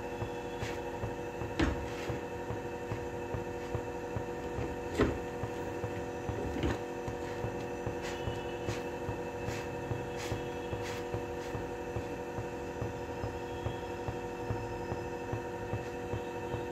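A jowar roti is pressed down with a folded cloth on a hot tawa, giving faint scattered ticks and a few soft thumps, the clearest about one and a half and five seconds in. Under it runs a steady hum made of several even tones.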